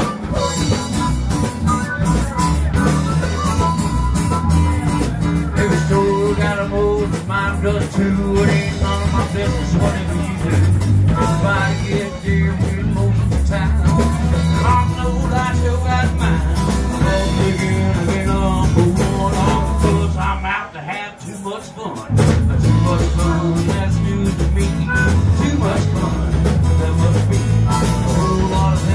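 Live blues-rock band playing: acoustic guitar, electric bass and harmonica, with a woman singing. The music thins out briefly about three-quarters of the way through, then comes back in full.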